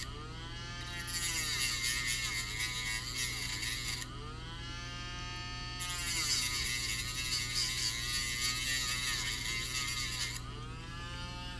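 Dremel rotary tool grinding into the plastic mouthpiece of a SMOK Nord pod, worked gently in passes. The motor's whine rises and falls in pitch when the bit comes off the work, and gives way to a steady high grinding noise while it is pressed into the plastic.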